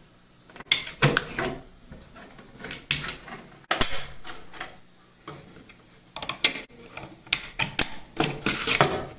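Irregular clicking and clattering of hard parts being handled, in several quick bursts with short pauses between.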